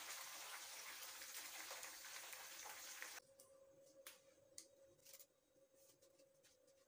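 Hot oil sizzling faintly around frying chicken, cut off abruptly about three seconds in. After that, near quiet with a faint steady hum and a few light clicks.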